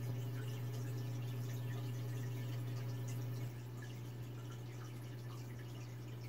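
Aquarium filter running: water trickling and dripping into the tank over a steady low motor hum, slightly quieter from about halfway.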